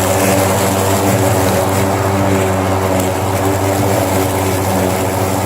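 Ryobi 20-inch battery-powered self-propelled lawn mower running steadily while cutting grass: the electric motor and spinning blade give an even, pitched hum.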